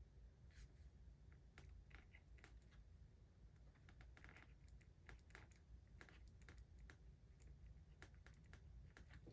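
Faint, irregular small clicks and short scratches of a 0.5 mm Zebra gel pen writing on paper, test strokes of a new pen.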